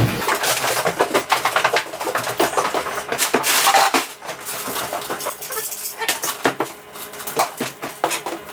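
Rapid clicking and clinking of small hard objects being handled, a dense run of short knocks and rattles.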